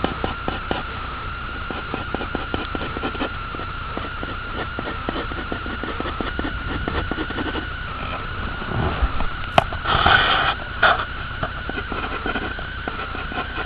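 Pencil scratching on paper in many short sketching strokes, over a steady high whine. A louder stretch of scraping comes about ten seconds in.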